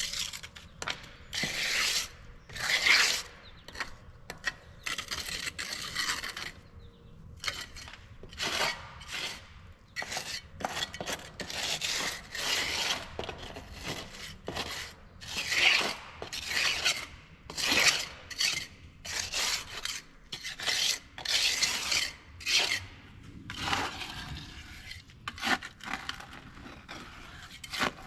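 A hand tool scraping over and over in short, irregular strokes, about one or two a second.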